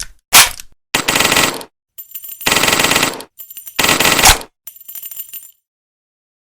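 Uzi submachine gun firing: one single shot, then three rapid full-auto bursts of about a second each, and a fainter last burst before it stops.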